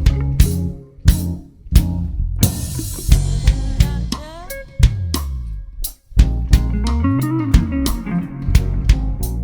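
A live band plays an instrumental passage: drum kit with kick and snare hits over bass and guitar. A cymbal wash rings out about two and a half seconds in. The band stops short just before six seconds and then comes back in together.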